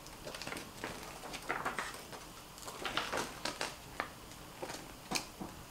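Paper instruction leaflet rustling and crackling as it is unfolded and handled, in a run of short, irregular crinkles, with a sharper tick a little before the end.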